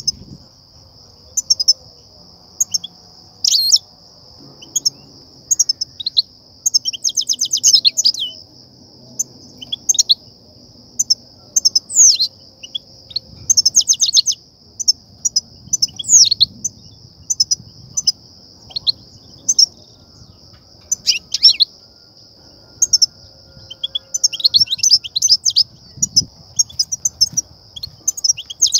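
European goldfinches chattering in bursts of short, sharp high chirps and fast rattling trills. This is the excited call that trappers use to stir goldfinches up and draw them to their nets. A steady high whine runs underneath.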